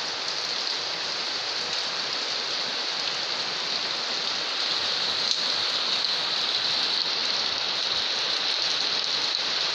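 Rain falling steadily, an even, unbroken rush of sound.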